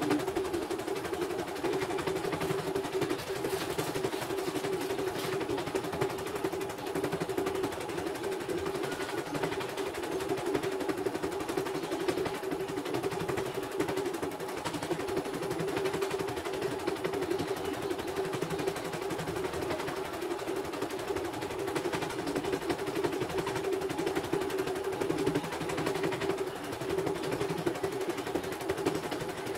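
CNY portable embroidery machine stitching a design: a rapid, even needle clatter over a steady motor hum.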